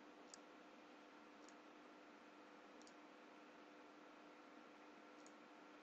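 Near silence with four faint computer mouse clicks spread over several seconds, over a faint steady hum.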